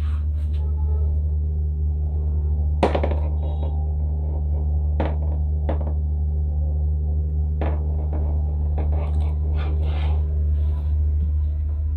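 Knocks and clicks of a power tool's cord and plug being unwound and handled, with one sharper knock about three seconds in and a quick run of clicks near the end, over a steady low hum.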